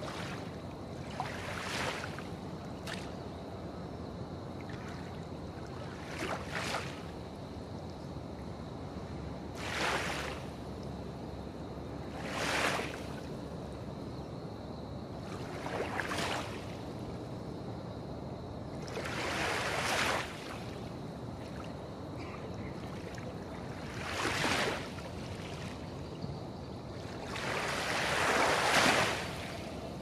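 Gentle harbour waves lapping, a soft chapu-chapu: a splash every few seconds over a steady low rumble, the loudest splash near the end.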